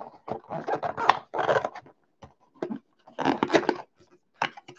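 Cardboard trading-card box and its packaging being handled and pulled open: several bursts of rustling, crinkling and scraping, the longest about half a second in and again about three seconds in.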